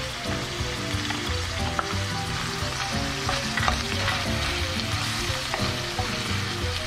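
Ground meat and rice sizzling steadily in a stainless steel frying pan as a wooden spatula stirs them, with a few light clicks of the spatula against the pan.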